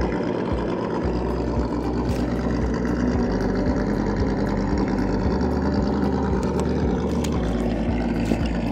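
Brushed electric motor (Holmes Hobbies Trailmaster 550) and geared drivetrain of a 1/8-scale RC crawler running steadily as the truck drives over dirt, with a few faint ticks scattered through.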